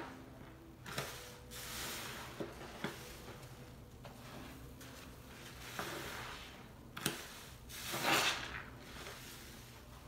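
Soap-soaked sponges squeezed and kneaded by hand in a sink of foam: a few wet squelching swells, the loudest near the end, with several sharp clicks.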